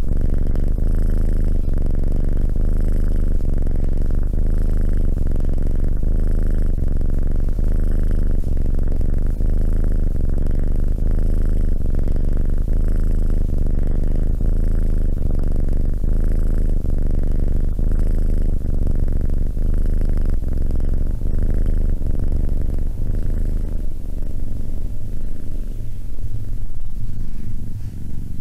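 Tabby kitten purring steadily close to the microphone, the purr swelling and easing with each breath about once a second.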